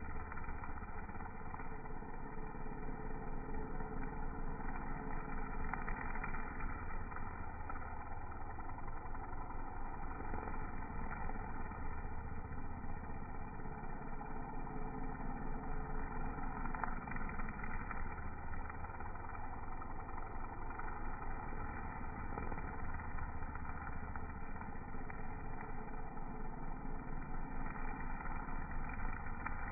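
Gas string trimmer running continuously while cutting grass, its engine note swelling and easing every few seconds.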